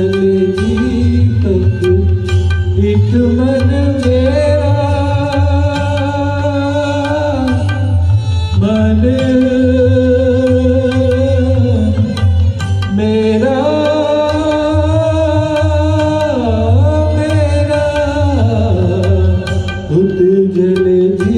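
A man singing a slow Hindi film song into a handheld microphone in long, held phrases, with wavering on some notes, over a backing track with tabla.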